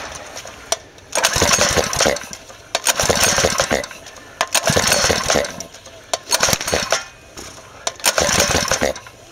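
Small four-stroke engine fed HHO (hydrogen-oxygen) gas, being pull-started with its recoil starter: five pulls about a second and a half apart, each cranking it over briefly without it catching. Starting is erratic, which the owner puts down to sparks firing at the wrong moment.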